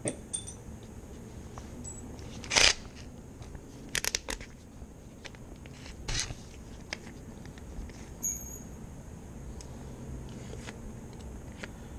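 A few short metallic clicks and scrapes of hand tools being handled, with a quick cluster of three or four clicks about four seconds in, as a screw extractor is set into a drilled-out broken bolt.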